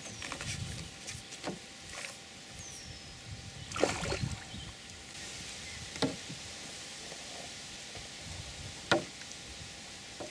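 A landing net is dipped and lifted out of the water with a small fish in it, making splashing and dripping water sounds. A louder splashy burst comes about four seconds in, and a few sharp clicks and knocks of handling follow.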